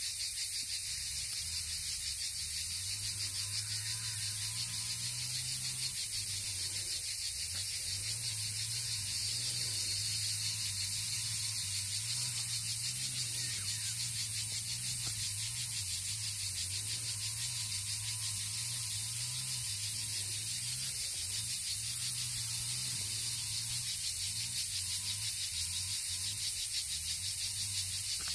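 A summer chorus of many stridulating insects (crickets, by the uploader's account): a dense, steady, high-pitched buzzing with a fast shimmering pulse. A faint low hum runs underneath.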